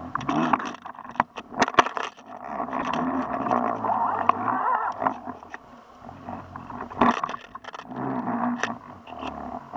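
Muffled underwater sound picked up by a camera housing on a fishing line: irregular knocks and scrapes as the line jerks, over a low hum from the boat's engine carrying through the water.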